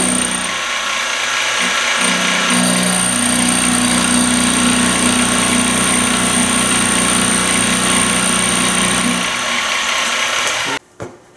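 Benchtop milling machine running, its end mill cutting a slot in a brass block: a steady mechanical whine with a thin high tone over it. It stops abruptly near the end, followed by a single click.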